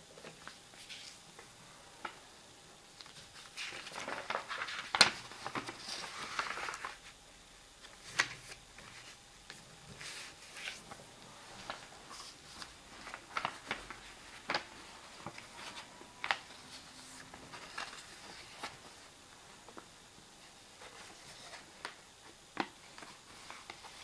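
A sheet of paper being handled and folded by hand on a tabletop: scattered rustles and sharp crease and tap sounds, with a longer, louder rustle from about four to seven seconds in.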